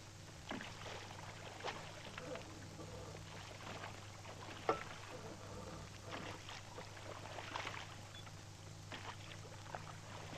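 Water splashing and trickling around boats on a river in small irregular splashes, over a steady low hum.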